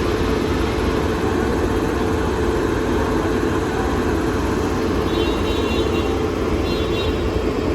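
Steady low rumble of a moving vehicle, running evenly, with faint short high beeps about five and seven seconds in.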